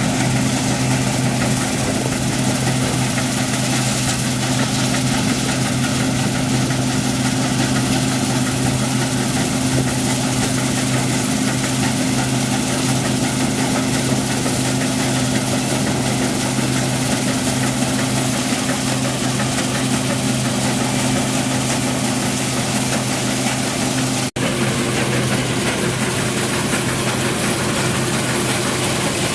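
New Holland CX8070 combine harvester running steadily, a constant low engine hum under a wide mechanical rush. The sound drops out for an instant about 24 seconds in, then carries on with a slightly changed hum.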